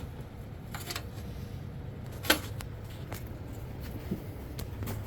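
Scattered metallic clicks and taps from parts and tools being handled while fitting the camshaft into a Honda TRX125 cylinder head, with one sharp knock about two seconds in, over a steady low rumble.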